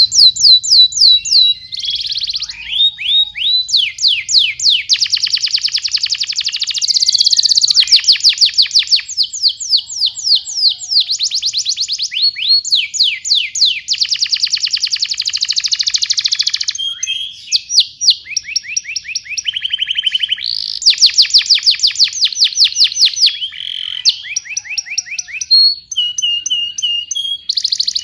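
Domestic canary singing a long, continuous song of rapid trills and quickly repeated sweeping notes, with brief pauses between phrases.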